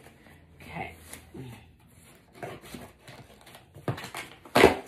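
Scissors cutting into packing tape and cardboard on a shipping box: a few short, scraping cuts, the loudest near the end.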